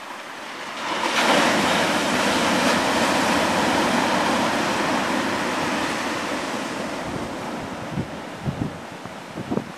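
Storm surf on a stony beach: a wave breaks about a second in and its rushing wash slowly fades. Near the end, wind gusts hit the microphone in a few low thumps.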